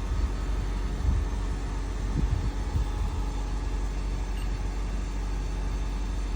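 Car engine idling with a steady low rumble, with a few soft thumps now and then.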